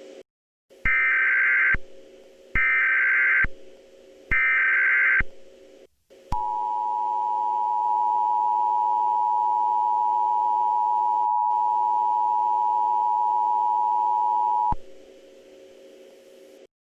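Emergency Alert System tones: three short bursts of warbling digital SAME header data, followed by the two-tone EAS attention signal (853 and 960 Hz), held for about eight seconds and then cut off. A steady low hum runs underneath.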